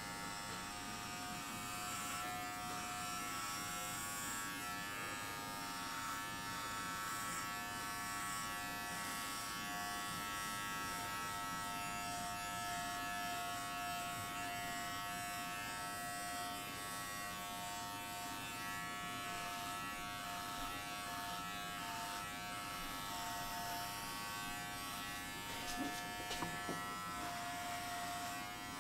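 Philips Norelco Multigroom 7000 electric trimmer running with a steady electric buzz as it trims chest hair.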